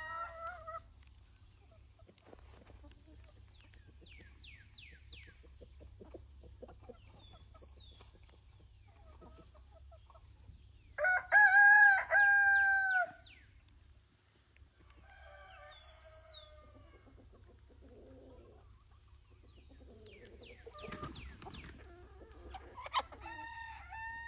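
Backyard chickens clucking and calling while they forage, with one loud rooster crow lasting about two seconds midway through, the loudest sound. Hens' drawn-out complaining calls come at the start and again near the end.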